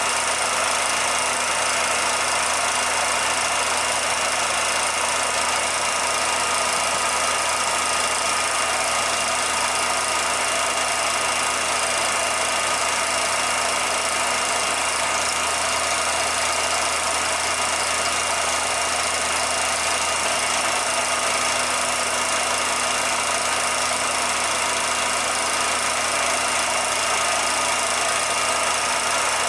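A 16mm film projector running: a steady mechanical whir and light clatter with a constant hum and hiss, unchanging throughout.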